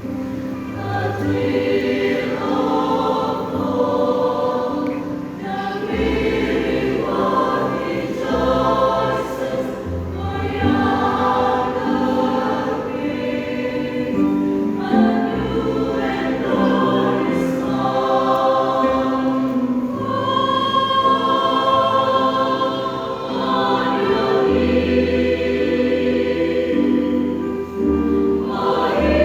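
Church choir singing a hymn in several parts, with low held bass notes underneath.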